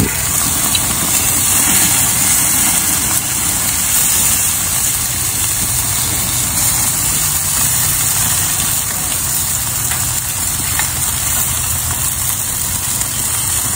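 Chicken thighs sizzling in Korean BBQ sauce: a steady hiss over a constant low rumble.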